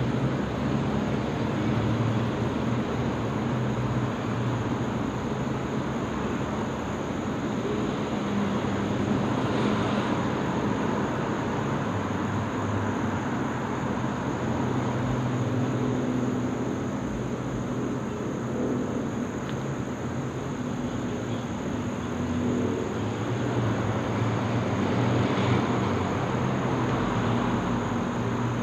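Faint propeller drone of a distant Beechcraft 58 Baron, a twin piston-engine airplane with three-bladed propellers, heard as a steady low hum.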